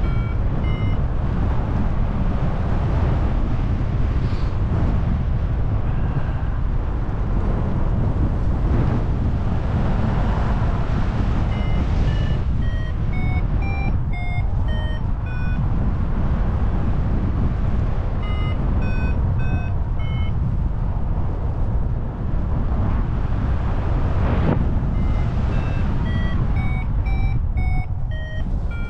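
Airflow rushing over the microphone in paraglider flight, with several runs of short electronic beeps at changing pitches: a flight variometer's climb tones, sounding while the glider rises in lift. The beeps come around the start, from about 12 to 15 seconds, around 18 to 20 seconds, and near the end.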